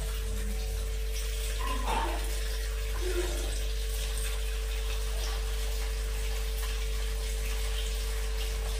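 Kitchen tap running steadily while chopped vegetables are rinsed by hand in a steel bowl.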